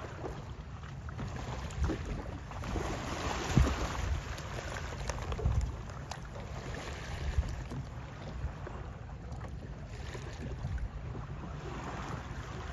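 Wind buffeting the microphone aboard a boat on open sea: a steady rushing rumble with a few louder gusty thumps, the strongest about three and a half seconds in.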